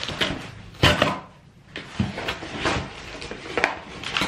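Cardboard delivery box being torn open by hand along its tear strip: irregular rips and crackles of cardboard, the loudest a little under a second in.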